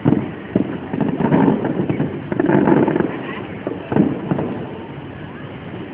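Aerial fireworks bursting in a display: a string of sharp bangs and crackles at irregular intervals, coming in clusters.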